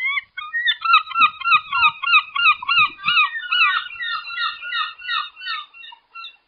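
A flock of birds calling, many short overlapping honks a few a second, thinning out and fading near the end.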